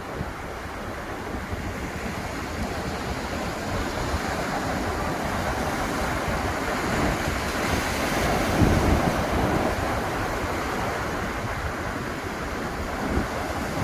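Ocean surf washing onto a beach, a wave breaking and swelling louder about nine seconds in, with wind buffeting the microphone.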